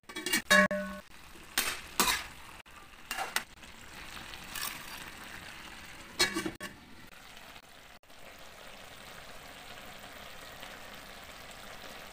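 Stainless steel pot lid clanking against the pan, with one loud ringing clank about half a second in and several knocks after it. The pan of pinakbet vegetables and fried tilapia then sizzles steadily as it simmers.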